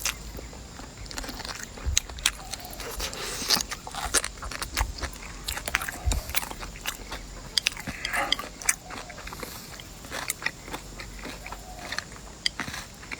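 A person chewing and biting food close to the microphone, with irregular crunches and clicks.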